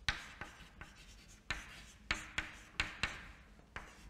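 Chalk writing on a chalkboard: a string of sharp taps as the chalk strikes the board, each trailing into a short scratch of the stroke, about ten in four seconds.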